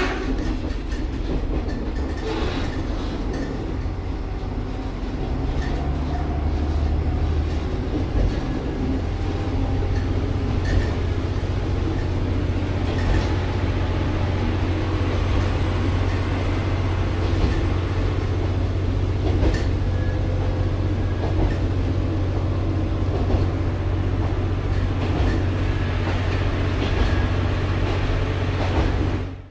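KiHa 47 diesel railcar under way, heard from inside the car: a deep, steady engine drone with the rumble of the running train and a few sharp knocks from the wheels over rail joints.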